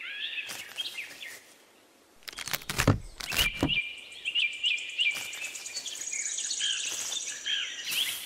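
Birds chirping over and over, with a fast high trill near the end. A few knocks and rustles come about two to four seconds in as a plastic model tree is pushed into sand.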